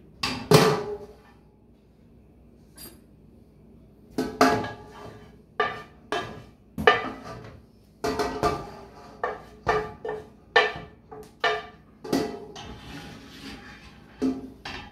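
A wooden spoon scraping and knocking against a metal skillet as a thick roux-based sauce is scraped out into a stainless stockpot. The sharp clanks ring briefly and come irregularly, about a dozen of them, with a quieter pause a couple of seconds in.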